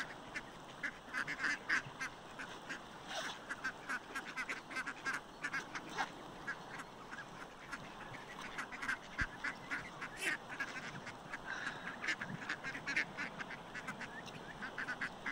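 A flock of waterfowl on open water calling: many short calls, one after another and overlapping.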